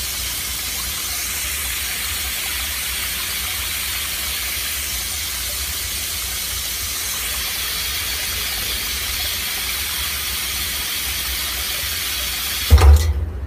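Water jetting at full flow from a two-stage full-open/full-close float valve inlet into a water tank, a steady loud hiss of spray. Near the end the spray cuts off abruptly with a loud thump.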